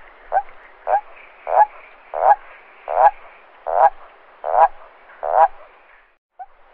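A toad croaking in a steady series, about one croak every two-thirds of a second, the croaks growing longer and louder over the first few seconds. A brief break near the end, then short croaks start again.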